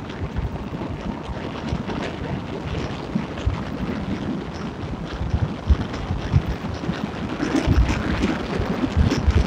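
Wind buffeting the microphone of a moving vehicle on the road: a gusty, low rumbling noise that grows louder near the end.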